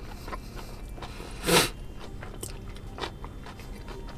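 A person chewing a mouthful of crunchy Cajun fried flounder sandwich with pickles, with small irregular crunches. There is one louder brief noise about a second and a half in.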